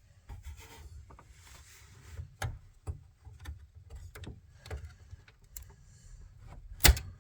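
Scattered light clicks and rubbing of a graphics card and its metal bracket being handled and worked out of a PC workstation's expansion slot, with one sharper knock near the end.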